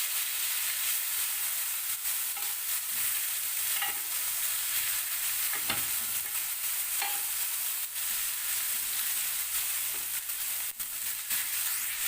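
Chicken leg pieces sizzling as they shallow-fry in oil on a dosa tawa, a steady hiss with a few faint clicks and one sharper tick about six seconds in.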